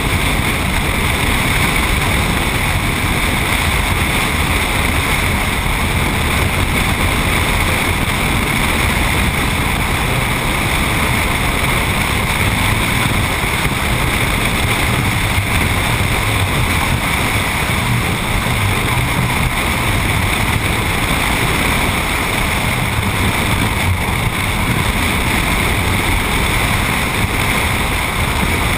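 Steady wind rushing over a side-mounted action camera's microphone on a moving vehicle, mixed with tyre and road noise at cruising speed.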